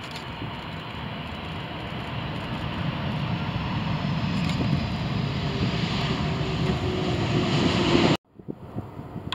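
Boeing 747-400 jet airliner landing close by: the noise of its four engines grows steadily louder, with a steady hum that sinks slightly in pitch. It cuts off abruptly near the end.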